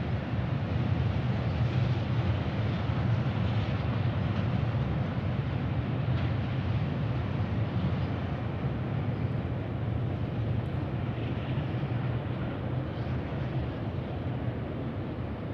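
Beyer-Garratt steam locomotive 6029 working a passenger train at speed: a steady, heavy rumble of exhaust and rolling stock that eases off a little near the end as the train draws away.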